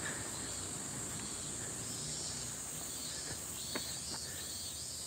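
Insects calling steadily from the trees in a high, continuous chorus, with a softer pulsing call beneath it. A single sharp click sounds a little under four seconds in.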